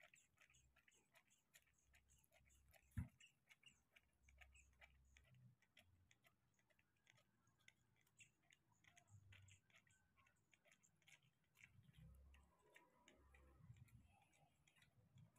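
Baby monkey suckling from a milk bottle: faint, irregular little clicks of sucking at the nipple, with one soft knock about three seconds in.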